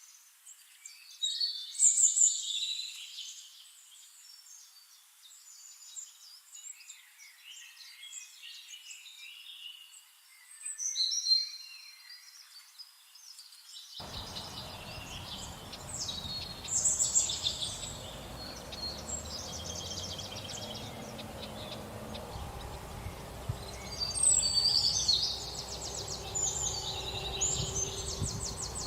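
Several small songbirds singing and chirping in overlapping short, high calls and trills. About halfway through, a steady low background of outdoor ambience comes in under the birdsong.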